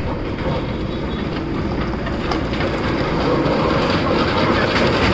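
Large steel walk-in wheel turning on its rollers as a person walks and runs inside it: a steady rumbling rattle that grows a little louder.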